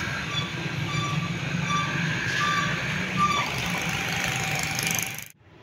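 Steady low engine hum, with a short high-pitched beep repeating about every 0.8 seconds. The sound cuts off suddenly about five seconds in.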